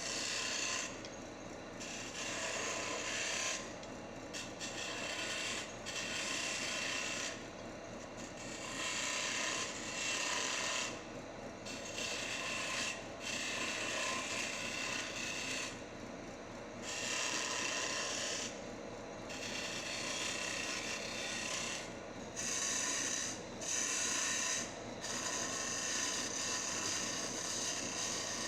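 Wood lathe running with a steady hum while a tool or abrasive is worked against the spinning wood. It scrapes and hisses in repeated passes of a second or two, with short breaks between them.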